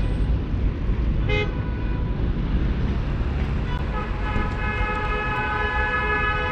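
Street traffic running, with a short horn toot about a second in and another near the middle. A long steady horn blast starts about four seconds in and is held.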